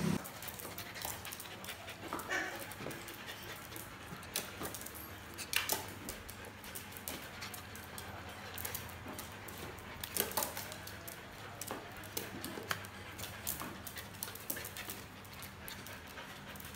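Small dogs panting and whining, with scattered light clicks and taps.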